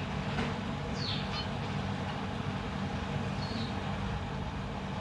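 A few short, high zebra finch calls, one falling in pitch about a second in, over a steady low hum.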